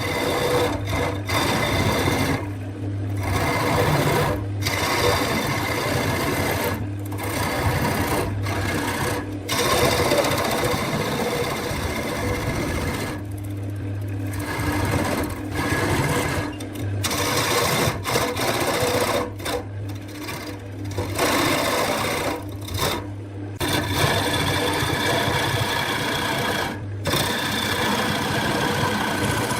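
Wood lathe running with a steady motor whine, broken by brief dips a dozen or so times.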